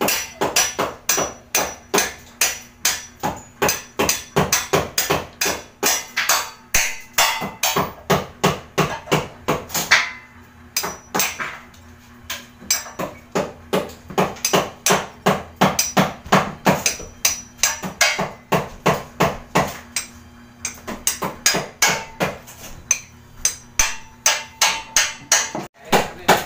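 Hand hammer striking in fast, regular runs of blows, about five a second, with a short pause about ten seconds in.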